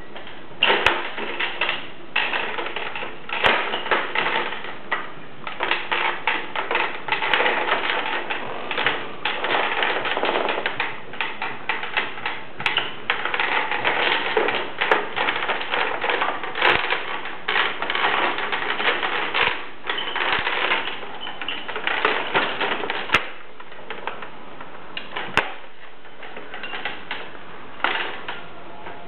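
Baby swing's plastic frame and mechanism clicking and rattling rapidly as a toddler pushes, shakes and rocks it, with a short lull about three-quarters of the way through.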